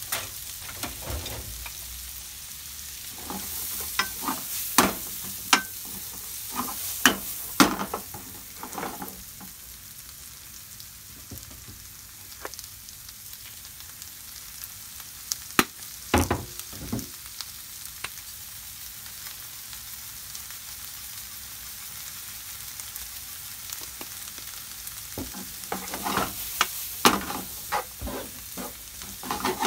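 Chopped onion, green pepper and sliced red wieners sizzling steadily in butter in a frying pan, with a wooden spatula scraping and knocking against the pan in bouts of stirring: several in the first few seconds, a short bout in the middle, and a busy run near the end.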